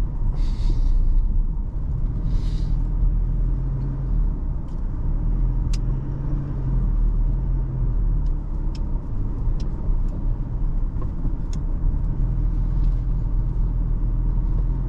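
Toyota Hilux's cabin road noise: a steady low rumble while driving, with irregular sharp clicks from something rattling loose inside, taken to be a cup or bottle left in the back seat. There are two brief hissy rustles in the first few seconds.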